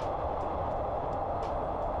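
Train running along the line, heard from inside a passenger car: a steady rolling rumble with a few faint clicks.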